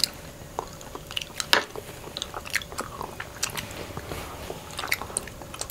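Mouth sounds of chewing mango popping boba and honeycomb: scattered small wet pops and clicks as the pearls burst, the loudest about a second and a half in.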